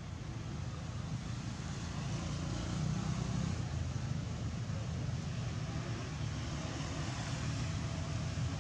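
Steady low rumble with an even hiss of outdoor background noise, swelling slightly a few seconds in.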